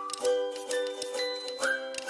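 Background music with plucked notes on a steady beat and a whistled melody line that comes in near the end.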